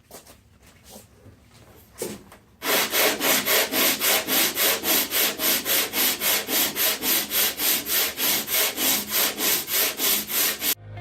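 Hand sanding of body filler on a car door: quick back-and-forth strokes, about four a second, starting about two and a half seconds in after a few light strokes, and stopping abruptly near the end.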